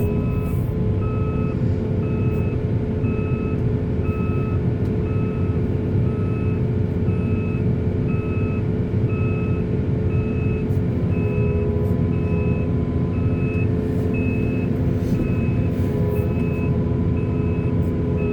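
Heavy diesel machinery running steadily while a reversing alarm beeps evenly, about once a second.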